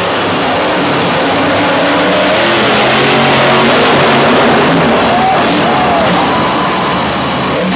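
Max-D monster truck's engine revving hard as the truck drives and launches over a dirt jump, loudest about three to four seconds in, heard over arena music.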